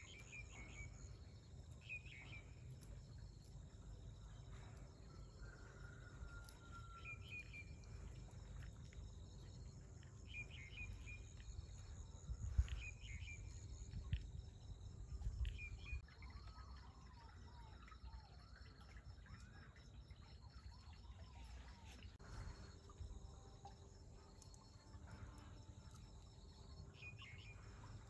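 Outdoor ambience: insects trilling steadily, with short bird chirps repeating about every two seconds. A low rumble runs underneath, with a few louder knocks near the middle.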